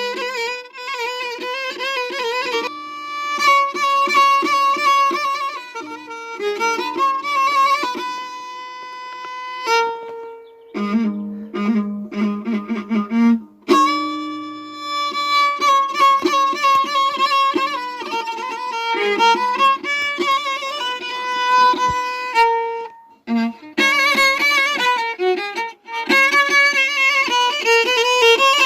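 Background music: a violin melody with wavering pitch, moving from note to note with a few short breaks.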